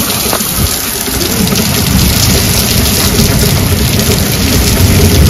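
Heavy rain pouring onto a wet concrete courtyard: a loud, steady hiss with a low rumble underneath.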